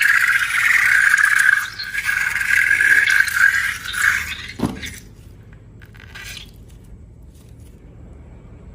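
Rubber balloon squealing for about four seconds, then a short tone sliding steeply down in pitch, followed by faint handling sounds.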